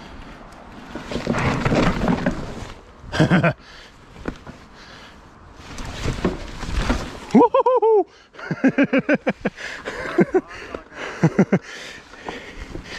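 Mountain bike rolling over rough forest trail, heard as a rushing noise, then a loud yell about halfway through. A run of short, quick laughs follows.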